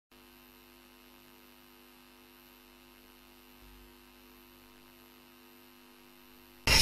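Faint, steady electrical hum with a few fixed tones. A loud, noisy sound cuts in abruptly just before the end.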